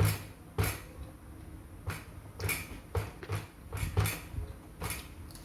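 Eating sounds from a meal of tahu tek: about ten short, irregular clicks and knocks with a soft thud under each.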